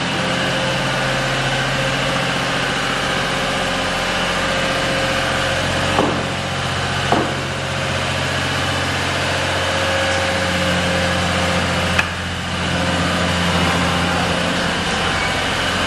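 Small tunnel locomotive running as it pulls a supply train: a steady engine hum, with sharp knocks about six, seven and twelve seconds in.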